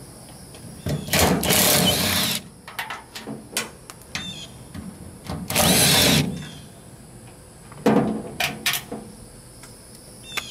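24-volt brushless cordless driver with a socket running twice, for about a second and a half each time, backing out the 7 mm bolts that hold the fuel filler neck. Then a few light clicks near the end.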